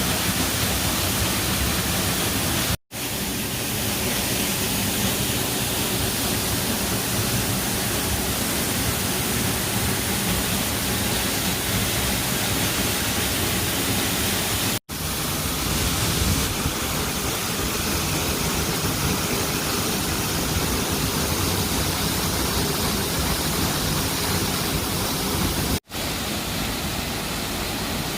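Ponytail Falls pouring, a steady rush of falling water close by. The sound is broken three times by split-second dropouts.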